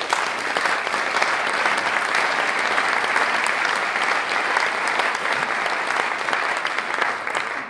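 Audience applauding, a steady spell of clapping that dies away near the end.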